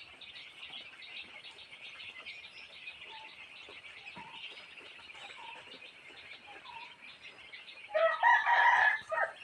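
A flock of broiler chickens peeping and chirping continuously. Near the end one bird crows once, loudly, for about a second.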